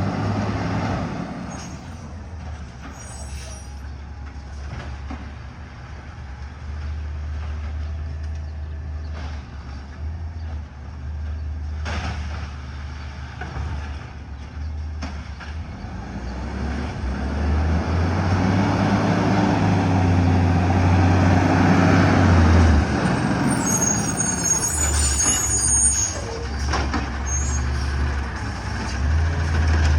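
A heavy truck's engine runs throughout and grows louder and higher for several seconds past the middle. A hiss of air brakes follows shortly after.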